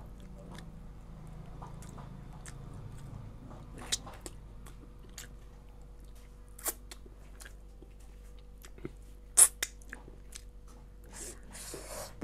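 Close-miked chewing and biting of a piece of local chicken meat, soft wet mouth sounds broken by scattered sharp crunchy clicks, the loudest about nine seconds in.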